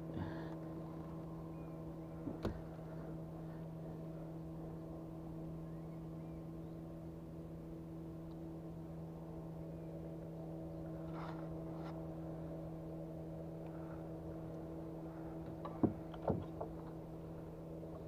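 A steady motor hum at a constant pitch, with a few faint clicks and knocks of handling.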